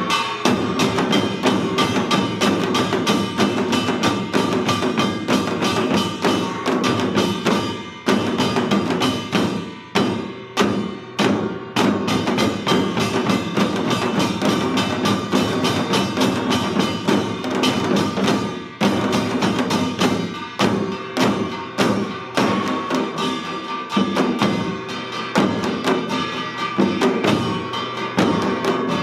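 Korean samul nori percussion ensemble playing janggu hourglass drums and barrel drums in a fast, dense rhythm, with a metallic gong ringing through the strokes. The playing thins briefly about ten seconds in, then builds back to full density.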